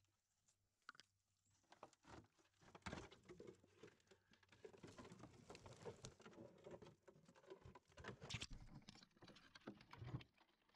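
Faint, irregular pattering and light tapping, a dense run of small clicks that starts about two seconds in and dies away shortly before the end.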